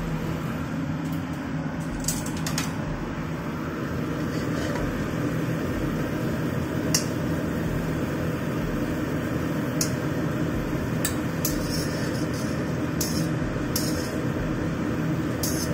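A metal spatula clinking and scraping against a steel wok of simmering meatball broth, several separate times, over a steady hum.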